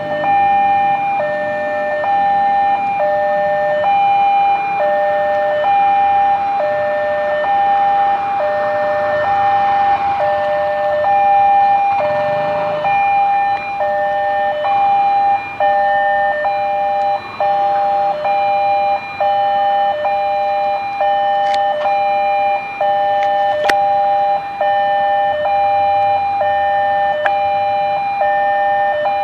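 Electronic railway level-crossing alarm sounding its repeating two-tone high-low chime, about one high-low pair every two seconds, warning that a train is approaching. Faint traffic noise from waiting motorbikes sits underneath.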